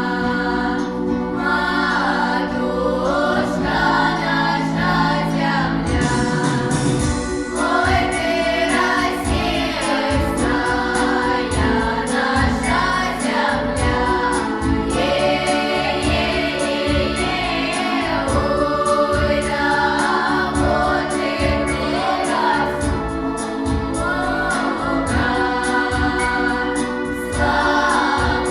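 Choir singing with musical accompaniment, a steady beat coming in about six seconds in.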